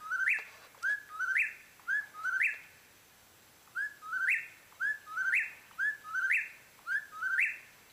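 A bird calling over and over: short rising whistled notes, about two a second, with a pause about three seconds in.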